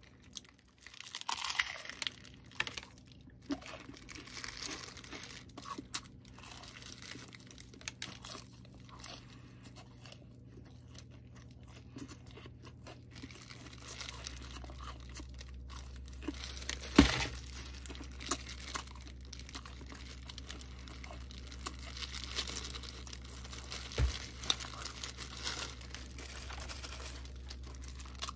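Crispy fried chicken being bitten into and chewed close to the microphone, with crunching of the crust and crinkling of a disposable plastic glove. A sharp knock about 17 seconds in is the loudest sound.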